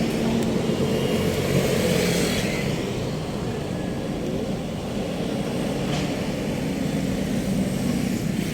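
Motor vehicle engine running with a steady drone, over continuous road and traffic noise.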